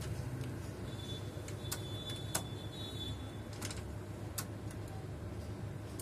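National G33 four-head VCR's tape mechanism clicking as it stops playback and goes into rewind: scattered sharp mechanical clicks over a steady low hum, with a thin high whine for a couple of seconds in the middle.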